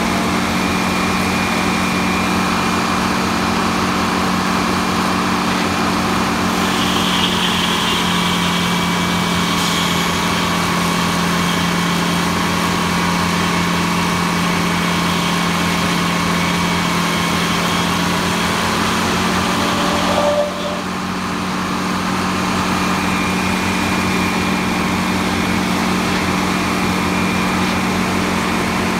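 Circular sawmill machinery running steadily, a loud even hum from the big head saw and its drive. About twenty seconds in the level drops suddenly and climbs back over a couple of seconds.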